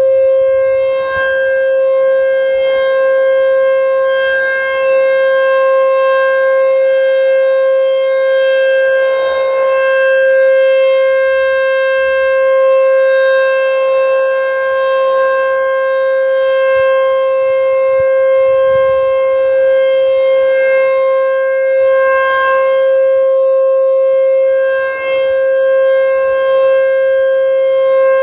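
American Signal T-128 rotating outdoor warning siren sounding its steady alert signal: one loud, unbroken tone held at a constant pitch.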